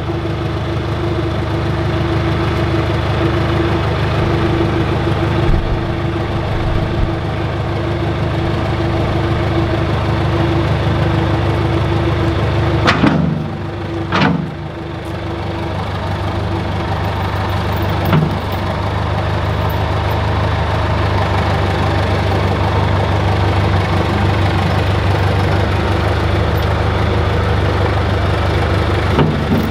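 Backhoe loader's engine idling steadily. Two sharp clunks come about thirteen and fourteen seconds in, and a lighter one a few seconds later.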